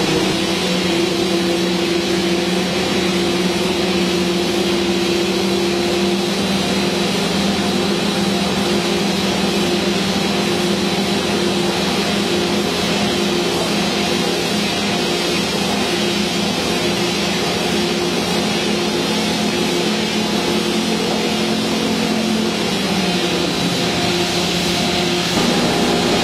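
Spindle veneer peeling machine (rotary veneer lathe) running, turning a log against the knife to peel a continuous sheet of face veneer: a loud, steady mechanical noise with several held tones that shift in pitch a few times.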